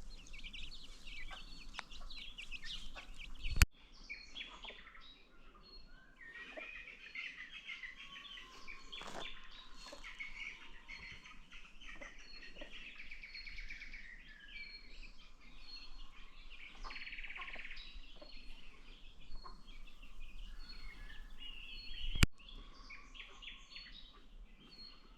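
Chickens clucking amid a dense chorus of high chirping, typical of baby chicks peeping. Two sharp clicks stand out, one a few seconds in and one near the end.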